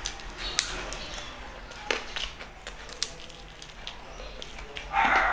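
Close-up eating sounds: chewing and wet lip-smacking with scattered sharp mouth clicks, and a louder burst of mouth noise about five seconds in.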